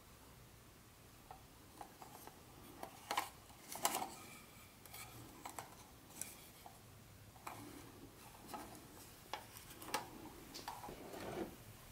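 Faint handling noise from a plastic O-gauge model-train caboose in cotton-gloved hands: scattered light clicks and knocks of its plastic body and wheels, with soft rubbing and a short rustle of packaging near the end as it is set down.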